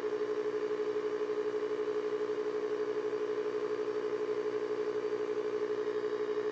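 Steady electrical hum-buzz from a running black-and-white tube TV set, several tones together with a fast even flutter, unchanged throughout.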